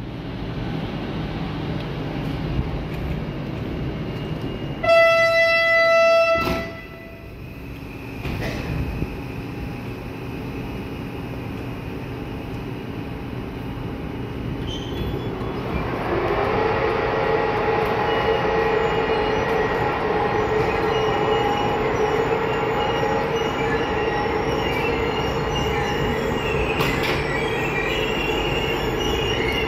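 Passenger coaches rolling out behind a 060-EA electric locomotive. About five seconds in, the locomotive's horn sounds one single-pitched blast of about a second and a half, the loudest sound here. From about halfway, a steady high wheel squeal from the coaches sets in and continues.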